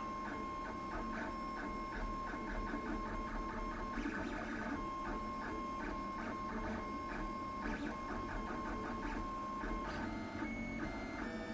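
Lulzbot TAZ 6 3D printer printing: its stepper motors give a steady high whine broken by quick short chirps, several a second, as the print head traces a layer. The whine drops out briefly about four seconds in and stops near the end.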